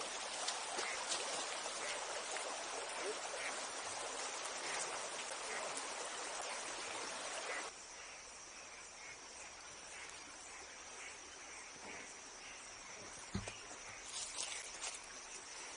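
Shallow stream running over a low concrete weir, a steady rushing of water that cuts off abruptly about eight seconds in. Insects then drone steadily in a high tone, with a single low thump a little before the end.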